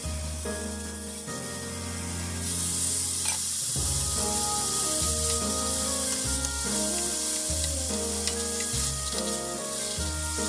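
Chicken tsukune wrapped around asparagus sizzling in a frying pan. The sizzle jumps up about two and a half seconds in as a sauce hits the hot pan and starts to bubble, over background music.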